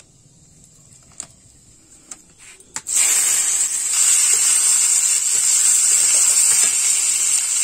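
Boiled, drained kharkon (ghetkol) stalks hitting hot oil in an aluminium wok: after a few faint clicks, a loud, steady sizzle starts suddenly about three seconds in and keeps going as the stalks are stirred, the sound of wet vegetables frying in oil tempered with nigella seeds.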